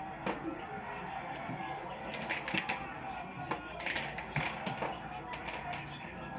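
Small tabletop bowling pins clattering as a puck slides into them and they fall on the wooden game board: a scatter of light clicks and clacks, bunched in two quick runs.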